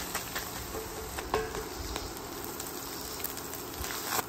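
Browned chorizo and ground beef sizzling and crackling in a hot cast-iron skillet while paper towels are pressed into the grease with a spatula, with a few light taps and scrapes.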